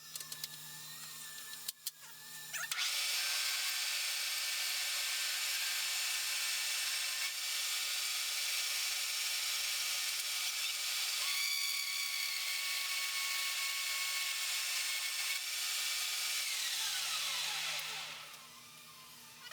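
Small machine lathe starting up a few seconds in and running steadily with a high whine, then switched off near the end, its pitch falling as it spins down.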